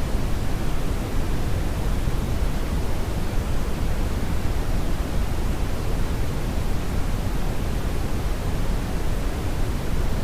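Steady brown (brownian) noise, a deep even rumble-hiss with most of its energy in the lows, unchanging throughout.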